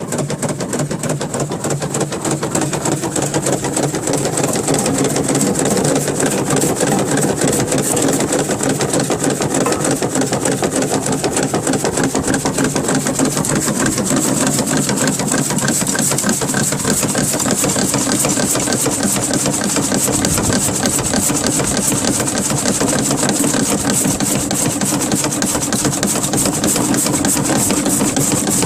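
Electric carrot-shredding machine for Korean-style carrots running steadily. Its motor hums under a rapid, dense rattle from the cutting mechanism.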